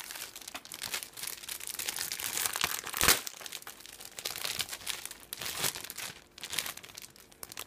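Clear plastic bags holding plastic model-kit runners crinkling as they are lifted and shuffled by hand, with one sharper crackle about three seconds in.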